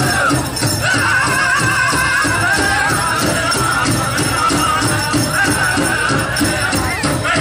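Pow wow drum group singing in high voices over a steady, even beat on a big drum, with bells jingling.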